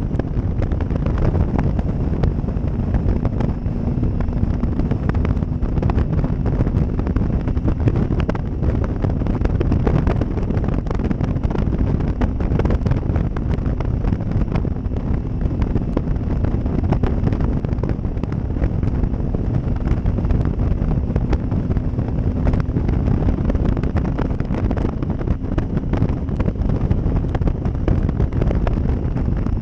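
Wind rushing over the microphone of a Triumph Tiger 800 XCx motorcycle riding at road speed, with the bike's three-cylinder engine running steadily underneath.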